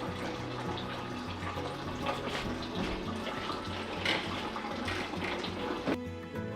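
Running water, like a tap filling a container, over soft background music; the water sound stops suddenly about six seconds in, leaving only the music.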